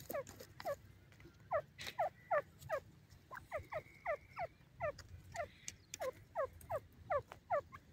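Grey francolin calling: a steady series of short, downward-slurred notes, about two to three a second.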